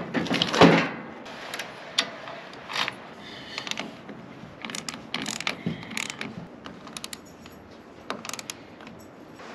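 Socket ratchet wrench clicking in short runs as battery terminal bolts are tightened, with a loud clatter of knocks in the first second.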